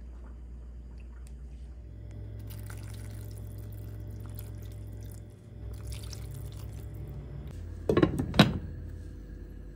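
Kitchen sounds of liquid being poured or moving in cookware over a steady low hum, with two quick knocks of cookware about eight seconds in.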